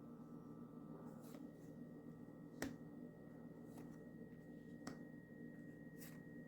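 Oracle cards being handled on a table, a few light clicks and taps about once a second, over a faint steady hum.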